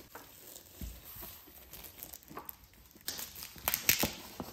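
Shiny metallic foil gift wrap being pulled and torn off a cardboard box: light handling rustles at first, then a burst of loud crinkling and tearing about three seconds in.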